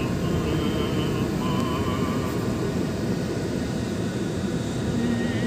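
Steady road and engine noise inside the cabin of a slowly moving car, with faint wavering melodic tones over it.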